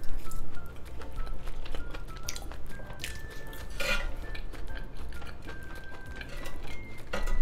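Wooden chopsticks tapping and scraping on an electric grill plate as pieces of grilled pork intestine are picked up, with a couple of louder clatters about four seconds in and near the end. Faint background music plays a simple melody underneath.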